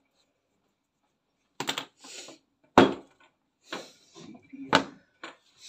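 A series of sharp knocks and thuds with short scraping or rustling sounds between them, starting about one and a half seconds in; the two loudest knocks come about a second and two seconds apart.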